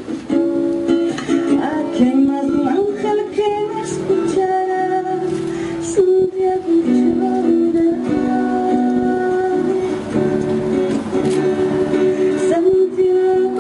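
A song with plucked-string accompaniment and a singing voice, played back.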